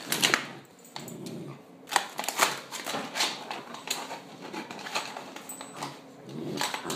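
A puppy growling low in bouts, strongest about a second in and near the end, while it bites and mauls a small terracotta flower pot, with sharp clicks and knocks of teeth on the clay pot throughout.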